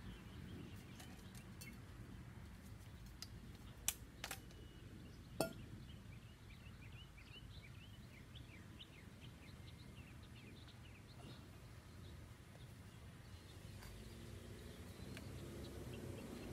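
Quiet outdoor background noise with a steady low rumble and faint birds chirping for several seconds near the middle. Three sharp light clicks come about four to five and a half seconds in.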